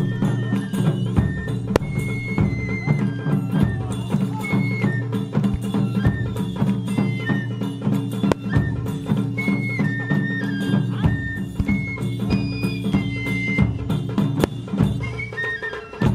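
Traditional Japanese taiko drum ensemble playing: drums struck in a fast, dense rhythm, with a high melody of short held notes above them.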